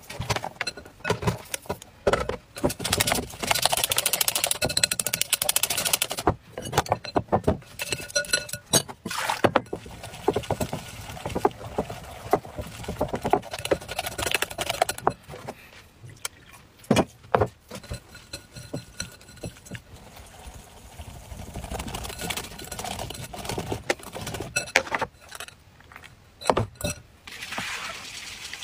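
Batter being beaten by hand in a glass bowl: rapid clicking and scraping of the utensil against the bowl, in spells with short pauses.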